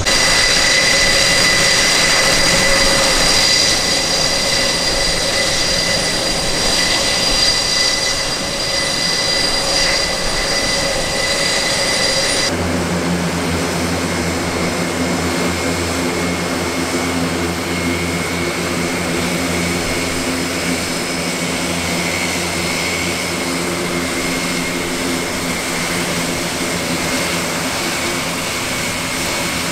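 Airbus A400M Atlas's four turboprop engines running on the ramp: a steady high turbine whine over the drone of its propellers. About twelve and a half seconds in the sound changes abruptly to a deeper, lower propeller hum under the whine.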